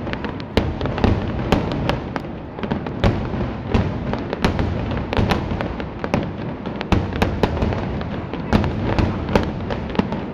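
Aerial firework shells in a finale barrage: a continuous string of sharp bangs about every half second, over a steady rumble and crackle of bursting stars.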